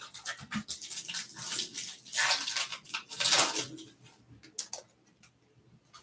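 Foil trading-card pack wrapper crinkling and tearing as a pack is pulled from the box and ripped open, in several rustling bursts, the loudest about two and three seconds in. A few light clicks of cards being handled follow.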